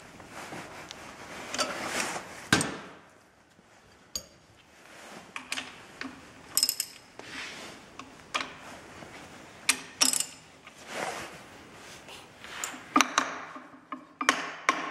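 Hand tools clicking and clinking on a billet aluminium Ford 9-inch differential third member: a pin spanner working the side bearing adjuster nut, then a ratchet wrench loosening the bearing cap bolts. It comes as a string of separate sharp clicks and knocks.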